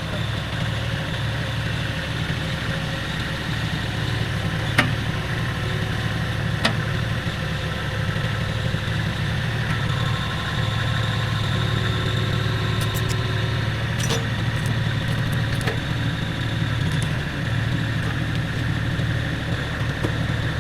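An engine idling steadily, with a few sharp knocks at intervals.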